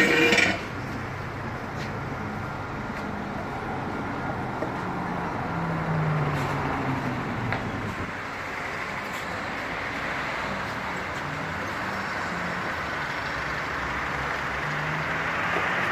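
Steady road traffic noise with engines running. A loud pitched sound that began just before stops about half a second in.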